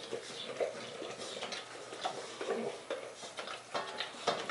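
English bulldog licking and nosing his already-empty metal food bowl, making irregular small clicks and taps of the bowl.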